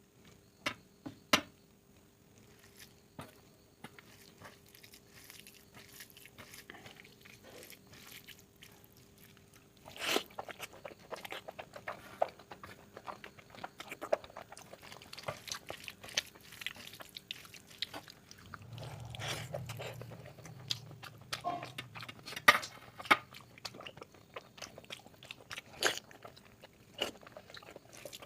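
Close-miked eating: wet chewing, biting and lip-smacking on oily mutton fat curry and egg masala. A few sharp clicks come at the start, then it is quieter, and the chewing turns busy and continuous from about ten seconds in.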